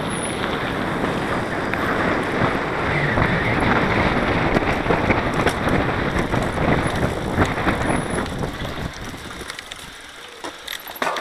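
Mountain bike ridden fast on a dirt forest trail: tyres rolling on dirt with the bike rattling, and wind buffeting the microphone. The noise falls away near the end as the rider slows on a steep climb.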